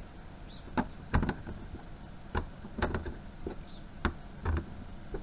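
Metal Bahco sockets being set onto the posts of a 3D-printed plastic socket tray: a series of about ten light knocks and clicks at uneven intervals.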